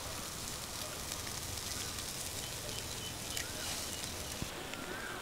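Oiled whole chickens sizzling in a stainless-steel grill basket over hot charcoal: a steady soft hiss with a few faint crackling ticks as oil drips onto the coals.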